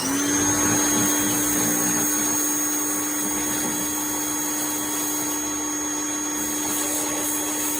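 Pressure washer running with a turbo nozzle: a steady motor whine over the hiss of the water jet. It spins up just at the start.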